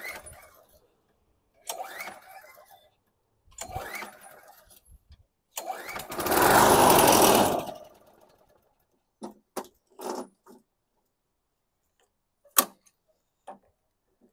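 Recoil-starter pulls on a 1998 Craftsman push mower's Briggs & Stratton engine: three short pulls, each with a rising whine, then on a fourth pull the engine catches and runs for about two seconds before dying, which the owner puts down to its carburetor. A few sharp clicks and knocks follow.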